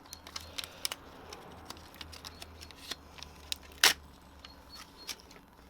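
Small clicks and metal handling noises from tyre plug repair tools being worked at the tyre, with one sharp click about four seconds in, over a faint low hum.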